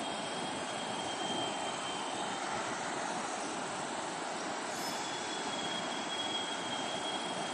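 Steady rush of flowing river water, an even noise without rhythm or breaks.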